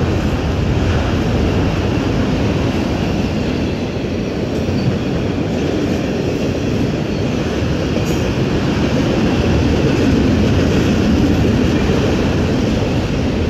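Canadian Pacific freight train of enclosed autorack cars rolling past close by: a steady, loud, low noise of steel wheels running on the rails.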